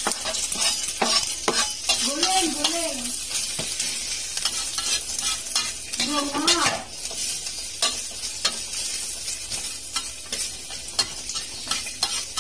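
Sliced onion and garlic sizzling in hot oil in a wok while a metal spatula stirs them, scraping and tapping against the wok many times.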